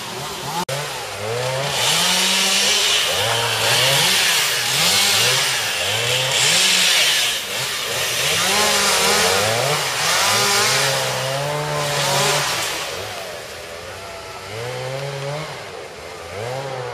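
Two-stroke chainsaw running, its engine revving up and down over and over so the pitch rises and falls about once a second, with a hiss of cutting noise that is strongest through the middle and fades near the end.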